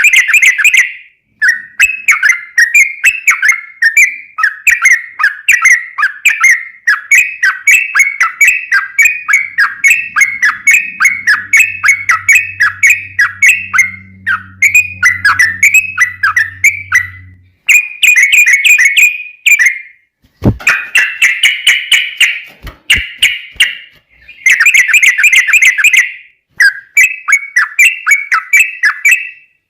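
Yellow-vented bulbul (trucukan) singing a long, fast run of chattering, bubbling notes, phrase after phrase with only brief breaks.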